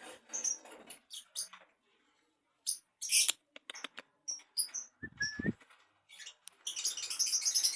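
A hand stroking and rubbing a cat's fur close to the microphone: irregular scratchy rustles and crackles, with a brief low thump and short squeak about five seconds in and the densest rustling near the end.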